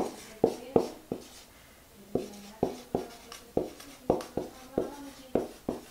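Writing by hand on a handheld board: a quick, uneven series of sharp taps and short strokes, about two or three a second, each with a brief ring.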